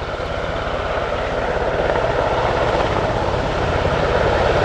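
Sikorsky CH-148 Cyclone helicopter hovering: the steady, rapid beat of its four-bladed main rotor, growing slightly louder toward the end.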